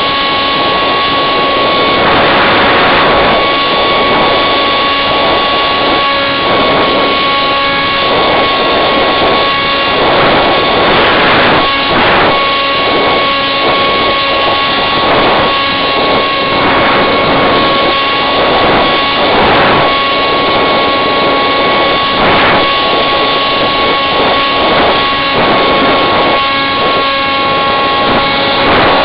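Electric motor and propeller of a Firebird Scout RC plane whining at a steady pitch, picked up by a camera riding on the plane, with airflow rushing over the microphone in swells every few seconds.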